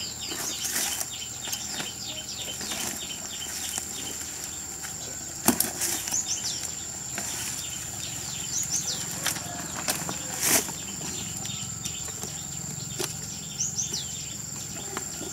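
Rustling of weeds and plastic sacks and several sharp knocks as a rusted, mud-caked motorbike is handled and hauled upright out of a rubbish heap. Small birds chirp now and then over a steady high-pitched tone.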